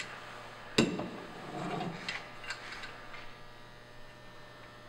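Steel timber-framing chisel being lifted off the leather strop and handled: one sharp click about a second in, then a few faint ticks, over a faint steady electrical hum.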